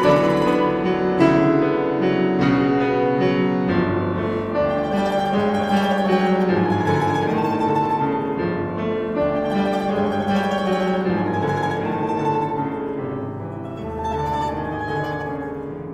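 Russian domra and grand piano playing together in a classical duo: plucked domra notes over piano chords, easing off somewhat in loudness toward the end.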